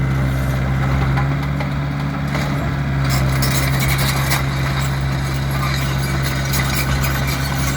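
Hyundai R60-7 excavator's diesel engine running steadily, with a hissier, clattering layer joining about three seconds in.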